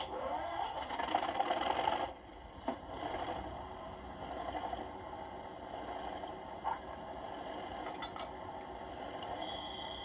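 OO gauge model Class 37 diesel locomotive running on the layout with its wagons: a steady diesel engine drone that rises and is loudest for the first two seconds, with a few sharp clicks of wheels over the track. A steady horn tone starts near the end.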